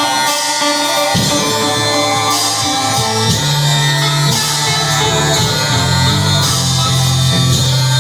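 Loud live improvised music with sustained low bass notes that shift in pitch every second or so, under a dense, noisy high end.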